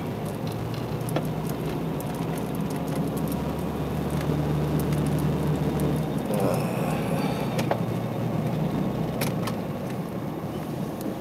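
Car engine and tyre noise heard from inside the cabin as the car drives slowly. A steady low hum grows louder in the middle and eases off about six seconds in, with a few light clicks.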